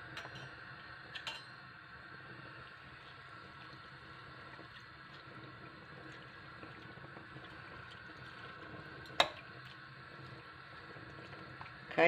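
Pot of crushed grapes boiling, a faint steady bubbling. A small click a little over a second in and a sharp click about nine seconds in.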